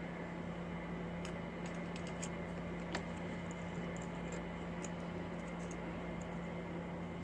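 Scattered faint light clicks and taps of hand work on small dirt-bike carburetor parts, over a steady low hum.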